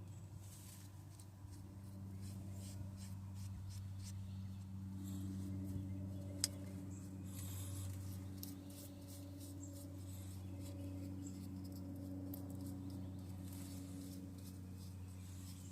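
Faint scraping and clicking of brake parts being handled while the caliper is greased and fitted, with one sharp metallic click about six and a half seconds in, over a steady low hum.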